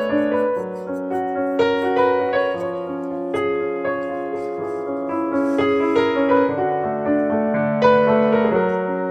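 Background piano music: a slow, gentle melody of sustained notes over soft chords.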